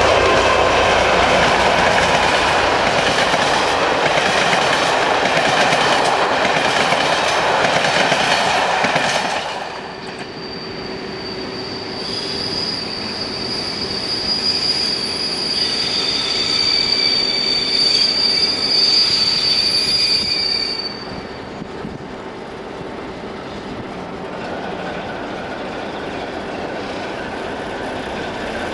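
ČD 'Bardotka' diesel locomotive hauling passenger coaches. First comes a loud pass-by of engine and rolling noise. Then, from about ten seconds in, a high steady squeal sounds as the train moves slowly through a station. The squeal stops a little after the middle and leaves the quieter engine running.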